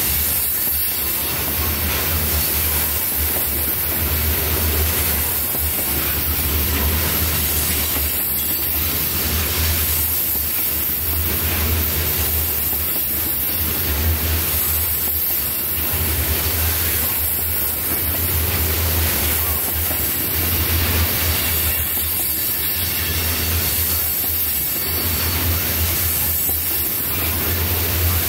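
A freight train of tank cars rolling steadily past with a continuous deep rumble, the wheels knocking over rail joints about every two seconds.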